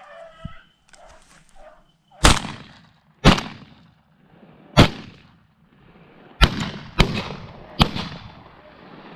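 Six gunshots from two hunters firing at a running rabbit, each with a short echo. The first three are about a second or more apart, and the last three come closer together. Beagles bay faintly during the first two seconds.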